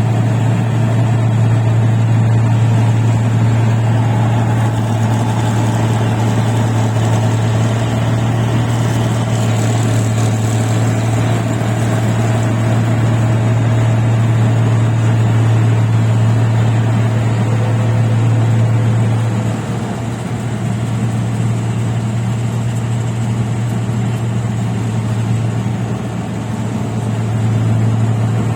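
Rice combine harvester's engine running steadily with a deep, even hum. It eases off a little about twenty seconds in and picks up again near the end.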